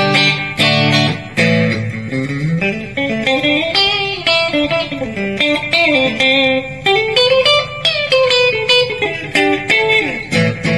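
Cort NZS-2 electric guitar played through a Peavey Bandit 112 combo amp, on the mixed pickup setting with the humbuckers not coil-split. A few struck chords open and close a single-note lead line with bends and slides.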